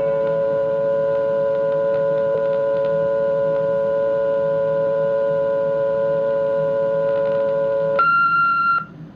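AT&T Telehelper 2700 answering machine playing back its incoming-message microcassette: a steady two-note telephone-line tone, recorded after the test call ended, runs for about eight seconds. It then gives way to a single short, higher beep that cuts off suddenly.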